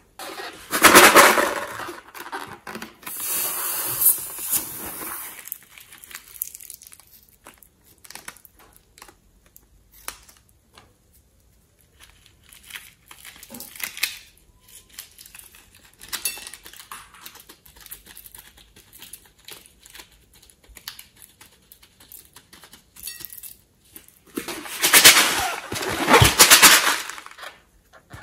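Crinkling and crackling handling noise of sequins on slime: loose sequins shaken and scattered, and fingers pressing and poking into the sequin-covered slime. There are two louder spells of rustling, about a second in and again near the end, with scattered small clicks and crackles between.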